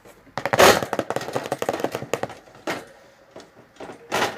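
Rapid clatter of sharp knocks and rattles as the mouse cage gear is handled, densest in the first two seconds, then two short bursts near the end.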